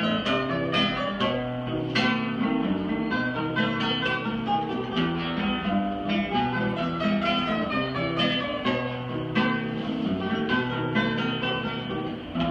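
Two acoustic guitars playing an instrumental break between verses of a folk song, with a steady run of plucked and strummed chords and no singing.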